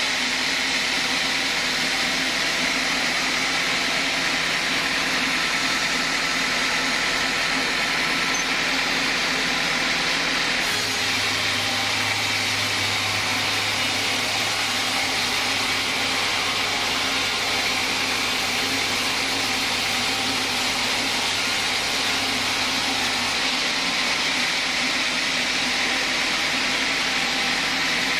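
Band sawmill blade running steadily through a large log, with a loud, even hiss of the cut and the machine's drive. A low hum joins about a third of the way in and stops a little before the end.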